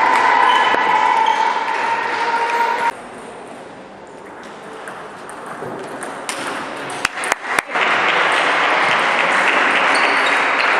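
Table tennis ball clicking sharply off bat and table, about five quick hits in under a second around seven seconds in. Before and after, a loud, even din from the hall, which starts and stops abruptly.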